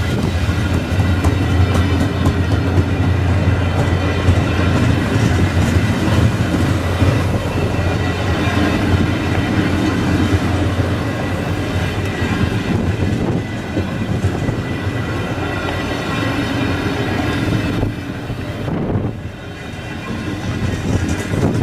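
Via Rail passenger train running through the station with a steady low rumble and wheel clatter on the rails. The sound drops briefly about nineteen seconds in, then builds again.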